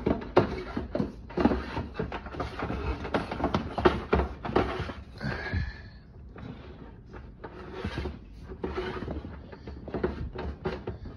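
Handling noise from a rubber garden hose and cords being stuffed and rubbed against a plastic tank: a run of rustles, scrapes and light knocks, with a brief squeak about halfway, then quieter handling.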